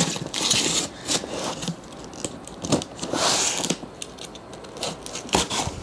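Box cutter slicing through packing tape on a cardboard shipping box, in rasping strokes near the start and again about three seconds in, with a few knocks of the box being handled.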